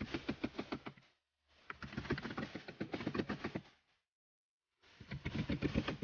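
Two hammers striking in quick, overlapping blows, fixing wooden shuttering battens to the top of a brick wall. The blows come in three runs separated by short breaks.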